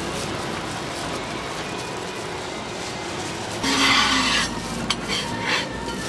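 Light sizzling from a crepe on a hot griddle, with a loud scrape of a spatula over the griddle surface a little past halfway as the crepe is worked loose. A sharp click and a shorter scrape follow.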